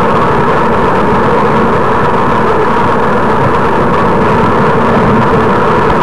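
Steady loud rush of wind and road noise picked up by a camera mounted on a moving road bicycle.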